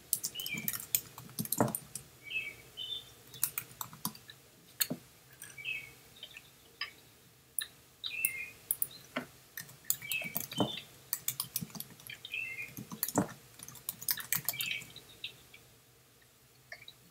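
Irregular clicking of typing on a computer keyboard, with short high chirps every couple of seconds.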